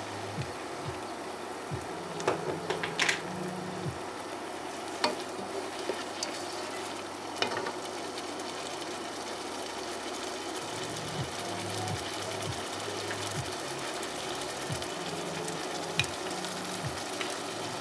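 Minced shallots, garlic and diced tomato sizzling steadily in butter and lemon juice in a saucepan, with a few sharp clicks and pops.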